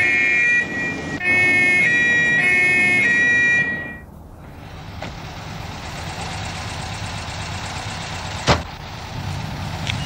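Car horn held down in long blasts, two notes sounding together, with a short break about half a second in and cutting off just under four seconds in. Then low engine noise, with one sharp knock about eight and a half seconds in.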